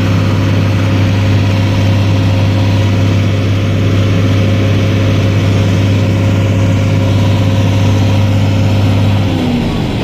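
John Deere 4440 tractor's diesel engine running steadily, driving a round baler. The steady hum changes and drops in pitch near the end.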